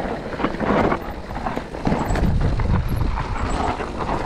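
Mountain bike riding fast over a rough trail: tyres on rocks and dirt with irregular knocks and rattles from the bike, over a low wind rumble on the microphone.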